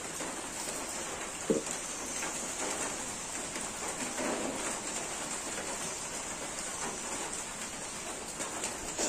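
Chicken curry simmering in an iron kadai over an open fire: a steady bubbling hiss, with one sharp click about one and a half seconds in.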